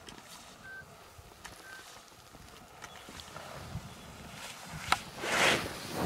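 Footsteps in snow, growing loud near the end, with two faint short beeps about a second apart early on from an avalanche transceiver in search mode.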